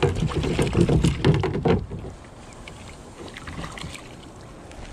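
Close handling noise: a dense string of knocks and rustles for about the first two seconds as a wooden landing net holding a trout is handled in a small boat. After that, a quieter steady wash of water and wind with a few light clicks.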